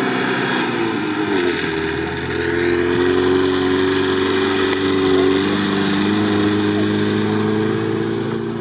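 VAZ-2101 Zhiguli engine revving high under load, its rear wheels spinning in deep sand while the car is pushed. The revs climb about two seconds in and are then held high.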